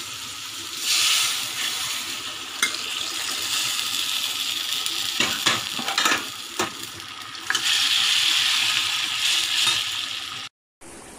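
Onion-tomato masala sizzling in a steel kadai as hot mutton curry is poured in. The hiss surges about a second in and again near the end, and a steel ladle clinks against the pan several times.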